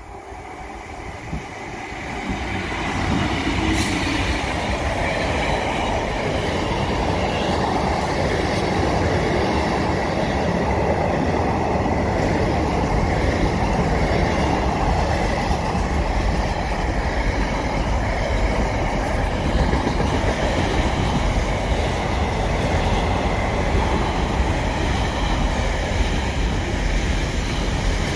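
A DB Cargo Class 66 diesel locomotive comes up and passes, its engine growing louder over the first few seconds. Then a long rake of container flat wagons rolls by with a steady rumble and clatter of wheels on the rails.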